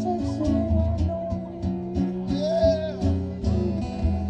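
Country-style music with guitar and a steady beat.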